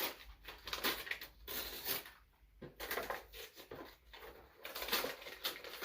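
Gift packaging rustling and crinkling in irregular bursts as a present box is opened and rummaged through.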